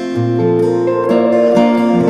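Background music led by an acoustic guitar, plucked notes changing every half second or so.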